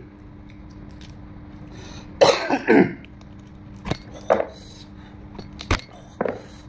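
A man eating meat torn from a boiled pig's head: two short throaty coughs about two seconds in, then scattered sharp clicks and smacks as he pulls meat off the bone and chews.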